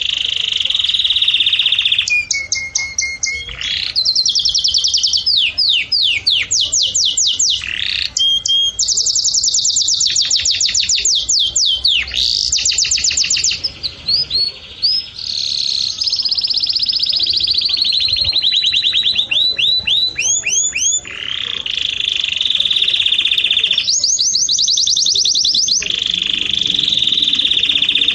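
A songbird singing a long, loud, almost unbroken song made of rapid trills: runs of quickly repeated high chirps, switching to a new kind of trill every second or two.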